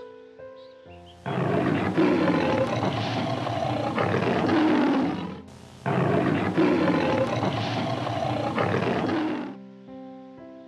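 Two long, rough animal calls of about four seconds each, one right after the other, over soft piano music.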